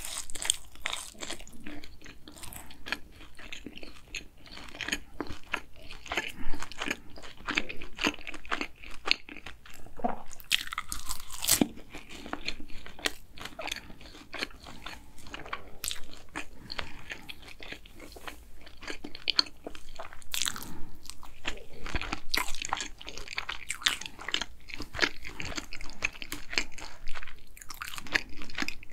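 Close-miked biting and chewing of a green tea ganache cronut: irregular crisp crackles of flaky laminated pastry breaking between the teeth, mixed with chewing.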